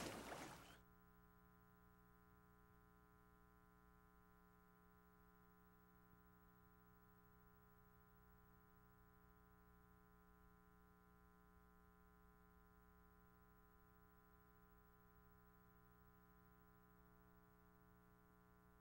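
Near silence with a faint steady hum, after the preceding sound fades out within the first second.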